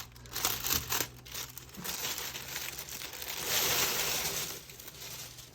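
Crinkling and rustling as a canvas tote bag and its packaging are handled and unfolded, with a few light knocks, the rustling strongest about three and a half to four and a half seconds in.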